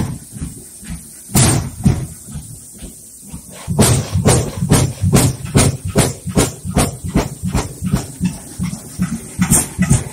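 Buckeye 110 hp horizontal stationary oil engine firing: a few separate sharp exhaust beats, then from about four seconds in a steady run of beats about three a second as the engine picks up and runs.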